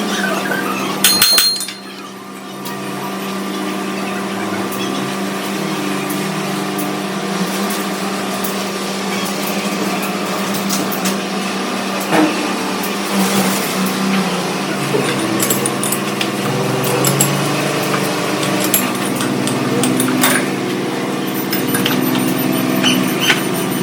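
Metal lathe running with a steady mechanical hum and shop noise, with a sharp metallic clatter about a second in and occasional clicks after.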